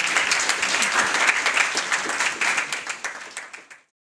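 A roomful of people applauding, many hands clapping together; the clapping dies away and stops shortly before the end.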